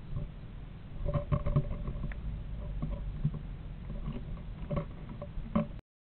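Southern flying squirrel moving about inside a nest box, its claws scratching and scrabbling on the walls and wood-shavings bedding. The sound is a run of irregular taps and scrapes, busiest about a second in.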